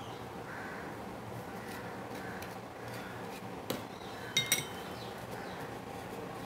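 Faint steady room hum with a few light clinks of crockery: one about midway, then two sharp ringing clinks close together a moment later, as fish pieces are handled and pressed into a flour coating on a plate.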